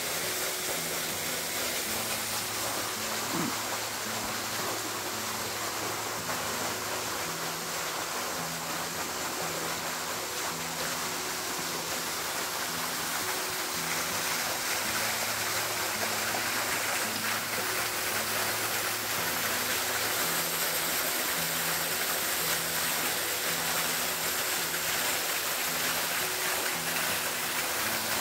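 Steady rush of flowing creek water and waterfall, with soft background music of low, stepping notes running underneath.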